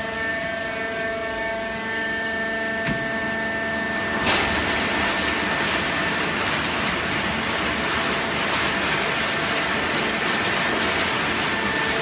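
Fully automatic horizontal waste-paper baler running: its hydraulic drive gives a steady hum with several high whining tones. A sharp click comes about three seconds in, and about four seconds in a louder rushing hiss sets in and carries on under the tones.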